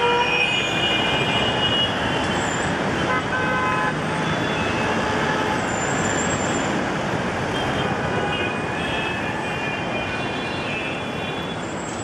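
Busy street traffic: a steady wash of passing vehicles, with car horns tooting near the start and again around three to four seconds in.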